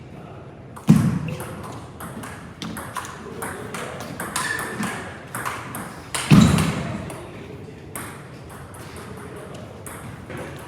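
Table tennis rally: a celluloid ball clicking in quick succession off rubber-faced paddles and the table, with two much louder thuds, about a second in and again about six seconds in.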